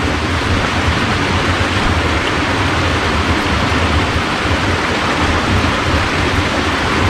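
Steady rushing of flowing water from a roadside stream or channel, an even hiss with no break.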